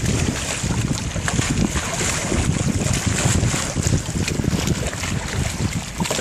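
Wind buffeting the microphone over the rush of water streaming past the side of a boat moving slowly ahead.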